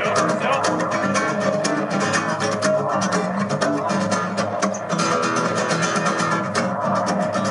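Loud live music with a rapidly strummed guitar over sustained low notes, playing without a break.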